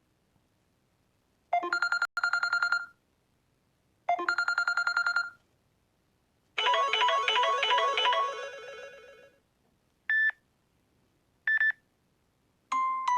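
Samsung Galaxy S7 ringtones playing one after another. First come two short bursts of a fast-pulsing electronic trill ring, then a melodic chime that fades away over a couple of seconds. Two short single beeps follow, and near the end a quick tune begins.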